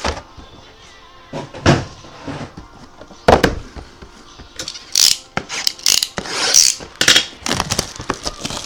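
Trading cards and their packaging being handled: a string of sharp clicks and taps at uneven intervals, about a second apart, with light rustling.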